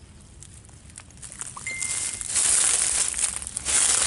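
Footsteps crunching through dry leaf litter, with fronds and brush rustling against the camera. Quiet at first, the crackling comes in about two seconds in, in two spells.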